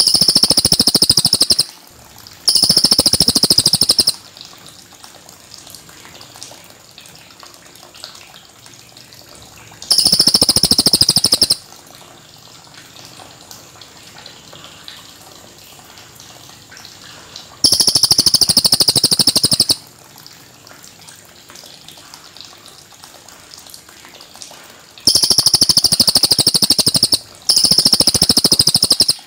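Cililin bird singing six long bursts of rapid, high-pitched trilled song, each about one and a half to two seconds. Between the bursts there is a faint steady hiss.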